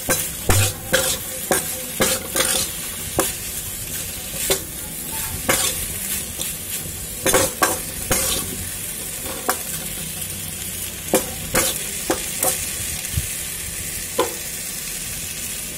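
Potato strips sizzling in oil in a kadai while a spatula stirs them. The spatula scrapes and clicks against the pan at an irregular pace, about once or twice a second.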